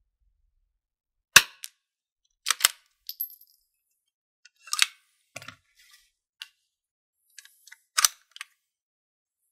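A long-barreled bolt-action .22LR rifle fires a single shot, a sharp crack about a second and a half in. The bolt is then worked, with a string of metallic clicks and clacks, one with a brief high ringing, and a loud clack about eight seconds in as the bolt is closed.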